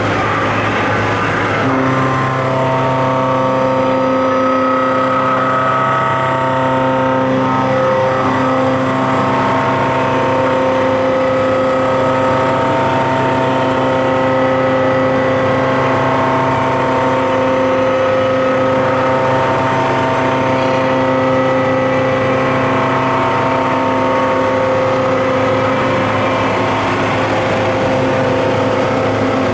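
Mori Seiki MH-50 horizontal machining center cutting under flood coolant: a steady whine of several held pitches over the hiss of coolant spray. The pitches change about two seconds in and shift slightly a few more times.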